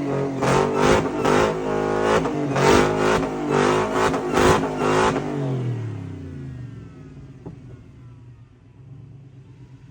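GAZ-24 Volga's supercharged 6.2 Hemi V8 revving hard during a burnout, surging up and down several times. About five seconds in, the revs fall away in a dropping note and the engine settles to a low rumble.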